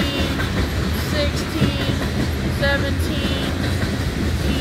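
Loaded coal train of hopper cars rolling past, a steady low rumble, with short high chirps recurring about once a second over it.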